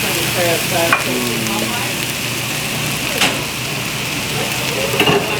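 Steak, shrimp, chicken and vegetables sizzling steadily as they fry, with a few sharp clicks of the cooking utensils.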